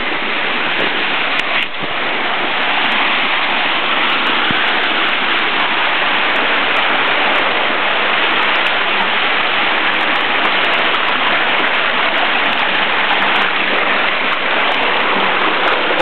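Steady rush of white water cascading over rocks at a waterfall.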